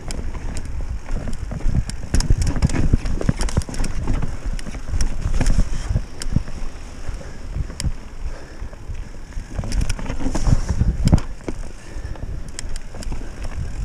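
Mountain bike riding down rocky singletrack: tyres rolling over rock and dirt with a steady low rumble, and frequent sharp knocks and clatter from the bike as it jolts over the rocks.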